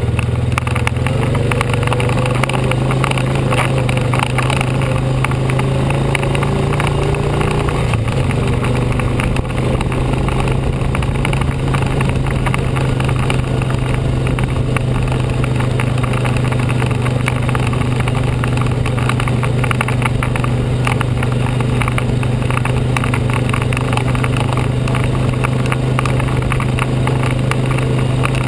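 ATV (four-wheeler) engine running steadily while riding a grassy trail, with a constant clatter of small knocks and rattles. The engine note drops a little about eight seconds in.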